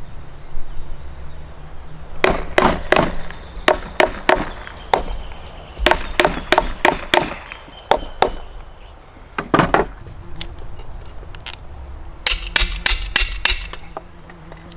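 Hammer blows on the top of an upright wooden log, in quick irregular runs of several strikes a second, each with a short metallic ring. The blows start about two seconds in.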